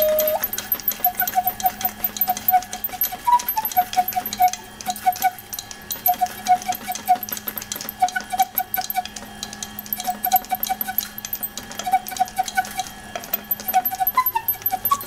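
Instrumental background music: a flute-like line of quick repeated notes in short groups, over a light, fast ticking rhythm.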